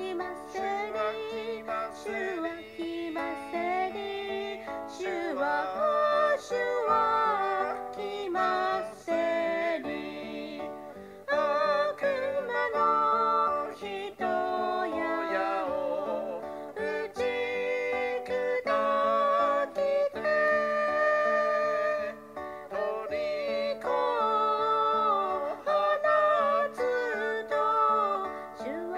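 A hymn sung with instrumental accompaniment, played back from an iPad recording, the melody going in phrases with short breaks between them.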